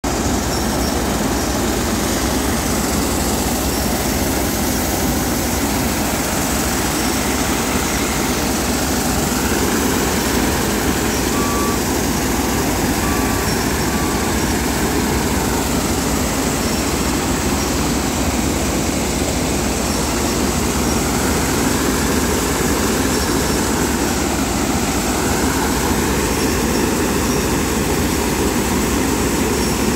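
Mini combine harvester running steadily while unloading soybeans, its engine and threshing machinery keeping up one constant, loud machine noise.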